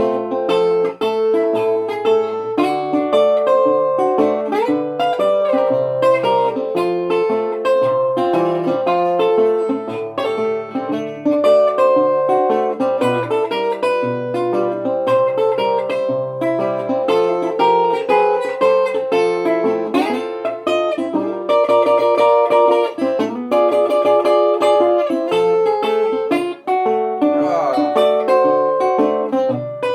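Solo guitar playing an instrumental break of a rag tune: a plucked melody over a moving bass line, continuous throughout.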